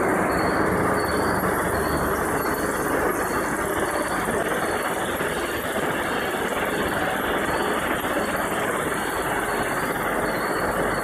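Steady running noise of snack-food production line machinery, a continuous mechanical din with a faint high whine.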